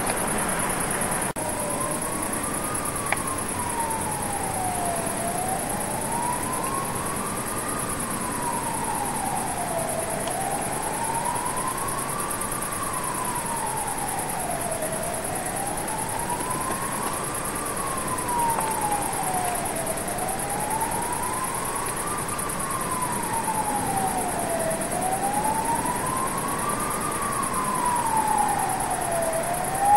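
Siren wailing, its pitch rising and falling slowly about once every five seconds, over a steady high hiss.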